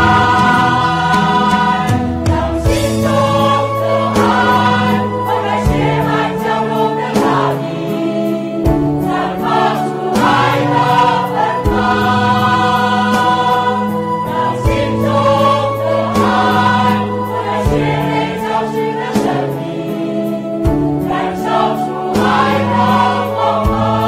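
Choir singing with musical accompaniment: held chords over a low part that moves to a new note about every three seconds.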